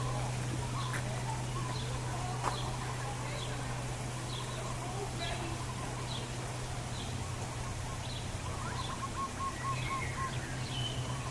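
Several birds chirping with short, repeated calls over a steady low hum and background noise, with a quick run of five or six evenly spaced notes near the end.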